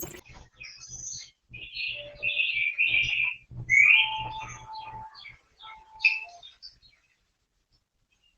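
Birds chirping in a string of short calls.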